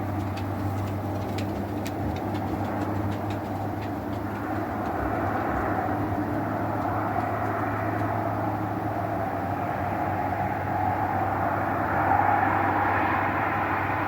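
Norwood LumberPro HD36 V2 portable band sawmill running, its engine humming steadily while the band blade cuts through wood. The cutting noise swells from about four seconds in and is loudest near the end.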